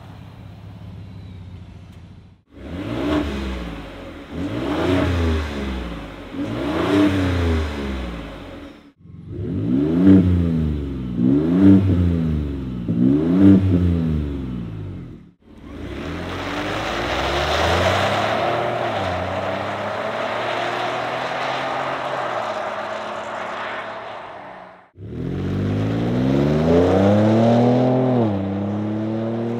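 2023 Ford F-150 Tremor's 3.5-litre twin-turbo V6 through a Flowmaster FlowFX cat-back exhaust. It idles, is revved in two sets of three quick blips, runs steadily for several seconds, and then pulls away hard, the pitch climbing and then dropping near the end.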